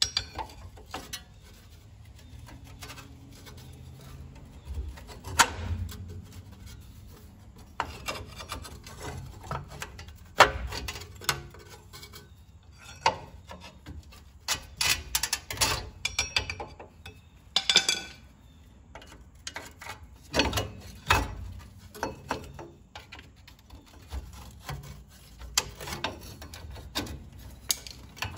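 Parking brake shoes and springs of a 2015 Ram 1500's rear brake being worked with a hand tool: irregular clicks, knocks and scraping of metal parts, with a few sharper knocks as the tool catches and slips while prying the top return springs.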